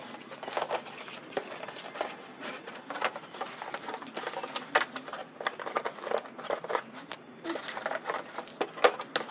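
Beagle chewing and tugging a thin plastic bag: irregular crinkling and rustling of the plastic with quick crackles.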